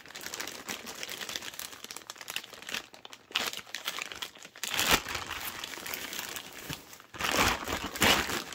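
Clear plastic bag and bubble wrap crinkling as they are handled and pulled open, in uneven bursts with louder rustles about halfway through and near the end.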